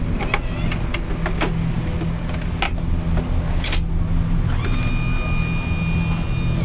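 Steady hum of an idling vehicle engine, with a run of sharp metal clicks and clanks as a gurney is wheeled and loaded into a van. About four and a half seconds in, a steady high tone comes in and holds.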